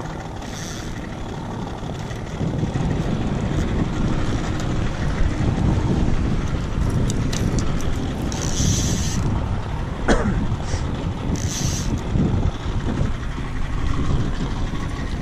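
Wind rushing over the microphone on an open fishing boat, over a steady low rumble. There are two brief high-pitched rattles, about eight and eleven seconds in.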